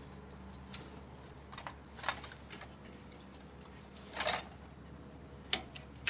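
A brake caliper being worked back over new brake pads onto its mount: scattered light metallic clicks and knocks, a longer clatter about four seconds in, and one sharp click near the end.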